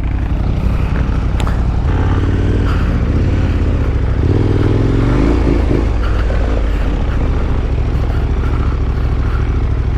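Motorcycle engine running steadily, its revs rising briefly about four seconds in.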